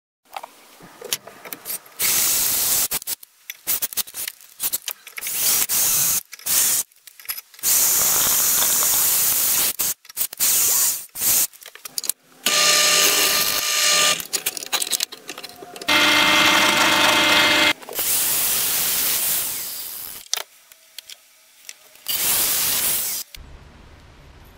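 Bench drill press working in short spells: the motor spins up and the bit cuts into metal, stopping and starting many times, with a steady motor tone in the longer runs.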